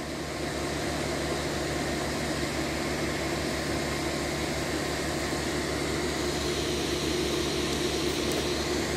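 Idling train locomotive: a steady low engine drone with a fast, even pulse.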